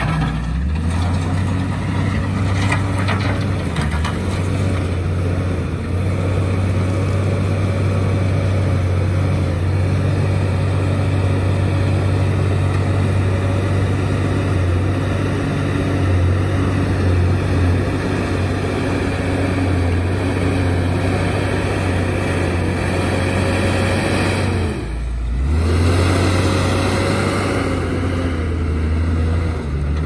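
JCB 432ZX wheel loader's diesel engine running steadily under load, with a wavering whine above the drone. About five seconds before the end the engine note dips briefly, then picks back up.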